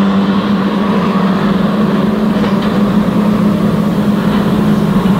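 Several saloon stock car engines running hard together as the pack laps the oval, a loud, steady engine drone.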